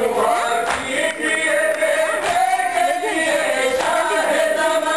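A group of men reciting a Shia nauha (mourning lament) together in a melodic chant, with thumps of chest-beating (matam) about every second and a half.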